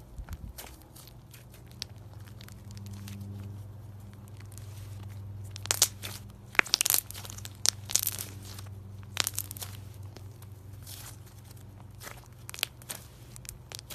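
Slime being squeezed and poked by hand, giving irregular sharp crackling clicks and pops, loudest in a cluster from about six to nine seconds in. A steady low hum runs underneath.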